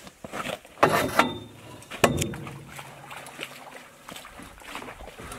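Steel chain-link fence top rail being pushed through a bench-mounted hoop bender as it is bent into a hoop: a few sharp metal knocks in the first two seconds, then a steady scraping and creaking as the pipe slides and bends through the rollers.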